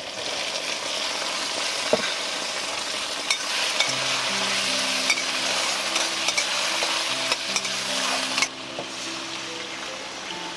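Food sizzling as it fries in a pan, a steady hiss with scattered sharp clicks of a utensil, cutting off abruptly about eight and a half seconds in. Soft background music with sustained low notes comes in about four seconds in.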